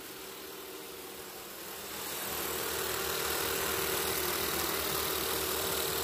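Robot vacuum running, a steady motor hum with a whirring hiss that grows louder about two seconds in as the machine comes closer, then holds steady.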